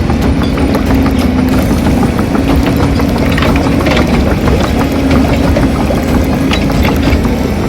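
Hobby-grade RC excavator working: a steady engine-like running hum with a held tone that drops out now and then, over many small mechanical clicks and ticks.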